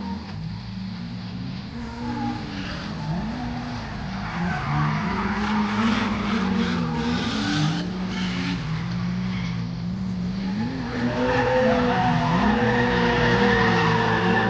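Drift cars in tandem, heard from inside the chasing car: engines revving up and down with the throttle as tyres squeal and skid. It grows louder for the last few seconds.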